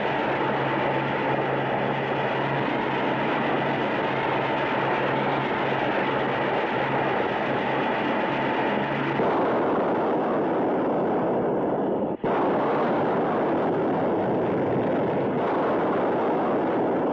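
Gas hissing loudly from plant pipes and valves, with a steady whistle-like tone and a low hum. About nine seconds in it becomes a fuller, lower roar, and after a brief break about twelve seconds in, the steady roar of a gas-filled building exploding and burning runs on.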